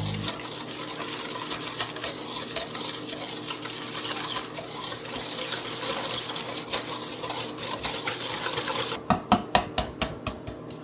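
Wire balloon whisk beating egg yolks and granulated sugar in a stainless steel bowl: a fast, steady clatter of the wires scraping and tapping against the metal. Near the end it breaks into a dozen or so slower, separate, louder clicks.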